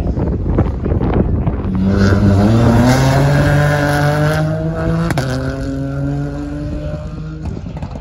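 Sprint car engine accelerating hard along the course. Its pitch climbs steadily for about three seconds, drops sharply about five seconds in, then climbs again and fades as the car draws away.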